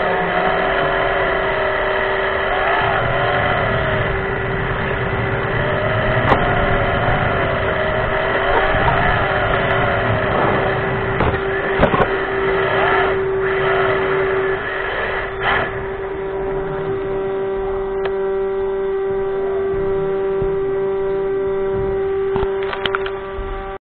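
Electric RC drift car's motor whine, heard from on board the car. Over a steady hum, the pitch rises and falls with the throttle through the first half, then settles into steadier tones. A few sharp clicks come through, and the sound cuts off just before the end.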